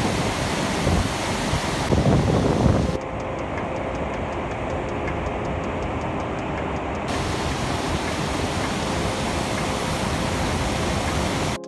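The steady rushing noise of a large waterfall's water crashing into the gorge below, with a louder low rumble about two seconds in.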